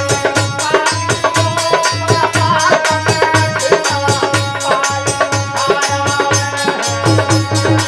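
Harmonium and dholak playing folk devotional music. The harmonium holds a sustained melody while the dholak keeps a quick, steady beat, with deep bass strokes about twice a second.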